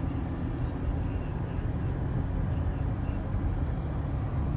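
Steady hum and air rush inside a car cabin, with the climate-control blower motor running at a high setting and no chirp or screech from it.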